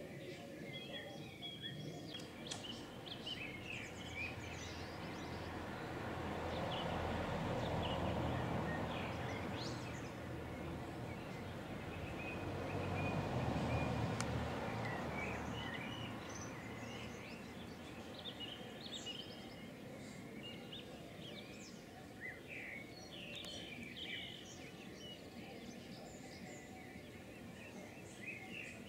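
Small birds chirping in short high calls, scattered throughout. A broad rushing noise swells and fades twice, loudest about a quarter of the way in and again near the middle.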